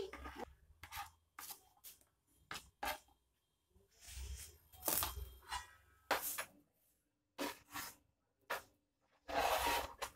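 Scattered short taps, scrapes and rustles of boiled garadu pieces and utensils being handled, with two longer rustles, one in the middle and one near the end.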